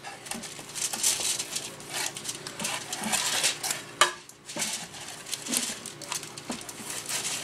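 A paper towel rubbing Crisco shortening over the aluminium-foil lining of an 8x8 baking pan: a continuous crinkly scraping and rustling of foil, with a sharp knock about four seconds in.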